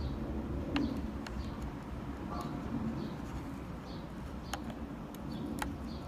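Light clicks and taps of plastic connectors and wires being handled and pushed into a skateboard's electronics housing, over a low wind rumble, with birds calling in the background.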